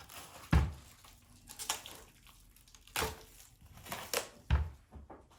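Packaging being cut open and handled, scratchy crinkling and tearing of wrap, broken by several hard knocks, the loudest about half a second in and another pair near the end.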